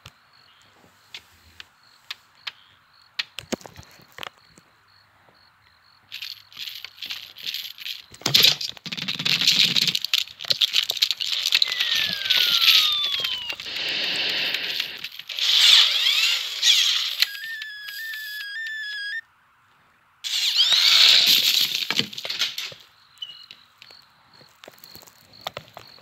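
Animated film sound effects with no dialogue or music: sparse clicks, then rapid clattering and rattling of toys with a falling whistle-like glide midway and a run of wavering electronic beeps. The sound cuts out for about a second, then another burst of clatter follows.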